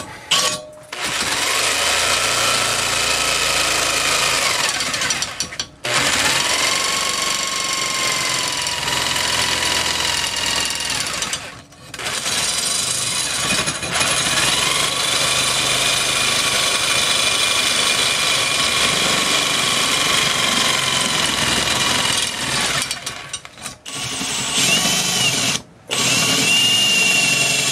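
A cordless drill boring into a cast aluminum intake part, and a corded jigsaw cutting through the aluminum, in several runs of about five to ten seconds with short pauses between. The motor whine climbs each time a tool starts.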